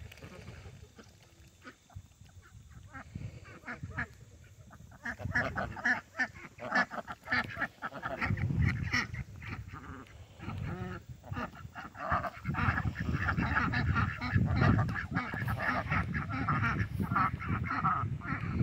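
A flock of ducks quacking. Scattered calls at first, building from about five seconds in to a loud, nearly unbroken chorus of short quacks.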